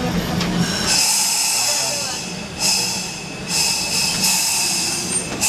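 Pacific Electric Red Car replica trolley coming to rest: its low rumble fades about a second in. Then air hisses in several surges, a sound typical of the car's air brakes venting.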